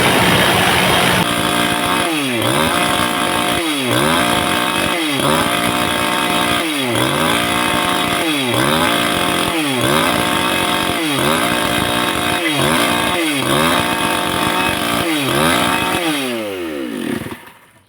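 Two-stroke chainsaw running hard against ceramic tile, its engine pitch dipping and recovering about every second and a half as the chain bogs in the cut. Near the end the engine winds down and stops.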